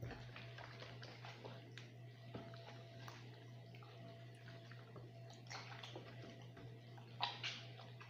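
Faint, irregular wet squelching and slapping of bare hands massaging a spice rub into raw whole chickens on a baking tray, a little louder about five and a half and seven seconds in. A steady low hum runs underneath.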